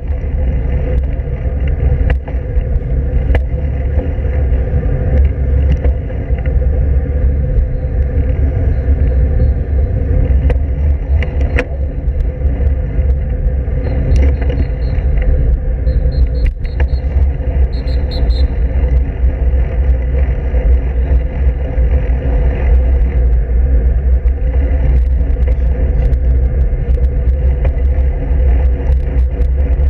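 Steady low rumble of wind buffeting the microphone and road noise from a camera mounted on a moving road bike's handlebars, with scattered light clicks and rattles. A few faint, brief high chirps come about halfway through.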